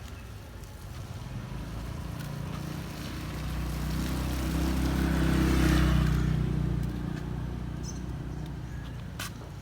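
A motor vehicle passes on a wet road, its engine and tyre hiss swelling over a few seconds and then fading, over steady rain. A single sharp tap sounds near the end.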